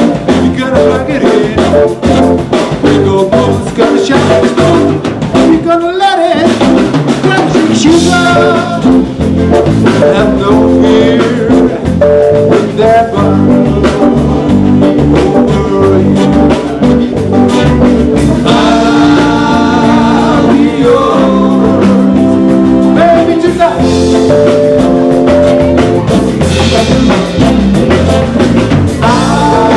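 A band playing a song: drum kit, instruments and singing, with a steady beat.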